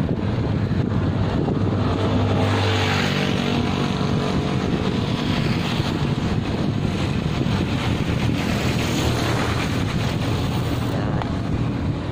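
Wind rushing over the microphone of a camera on a moving bicycle, a steady rumbling noise. A motor vehicle's engine hum rises over it about two to five seconds in as the vehicle passes.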